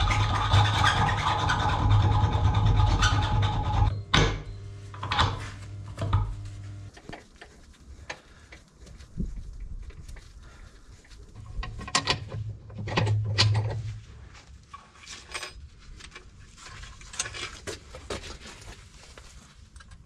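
Hand tools working on a tractor's lift-arm stabilizer: scattered metal clinks and knocks, and a socket ratchet tightening its bolts. A low hum comes and goes beneath them.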